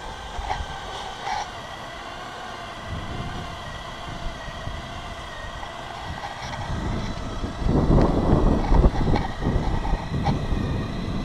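Cordless drill running slowly, turning the cutter of a tapping machine into an 8-inch C-900 PVC water main under pressure, with a faint steady whine. About two thirds of the way in, a louder, rough low rumble takes over.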